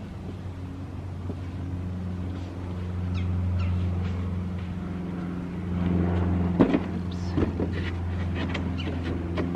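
A steady low motor hum throughout, with a few short falling chirps in the first half. From about six seconds in come a handful of sharp knocks and scrapes, from digging potatoes out of the soil.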